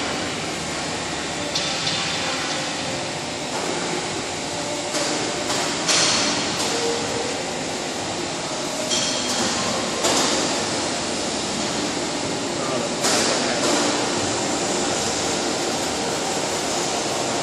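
Steady running noise of a vertical automatic stone profiling machine, with a few sharp knocks and clatters from the heavy stone moulding being handled.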